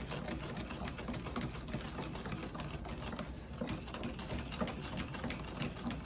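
Wet concrete mix being stirred briskly in a plastic party cup, the stirrer scraping and clicking rapidly and rhythmically against the cup's sides and bottom. The mix has just had its water added and is being stirred to a runny pour.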